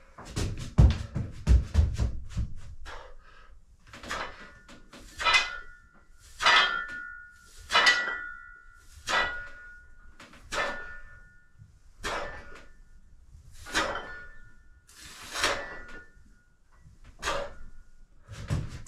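Metal weight-training gear clinking and knocking once per repetition, in a steady rhythm of about one ringing clink every second and a half. A few heavier low thuds come in the first two seconds.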